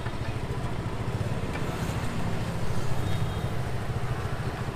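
A vehicle engine idling close by: a steady low rumble with a fast, even pulse.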